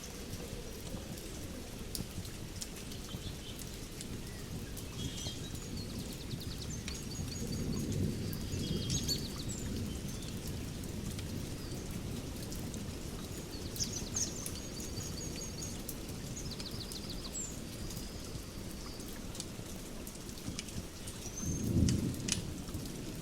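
Nature ambience: distant thunder rumbling twice, once about a third of the way in and again, louder, near the end, over a steady hiss with scattered crackles. Birds chirp and trill several times through it.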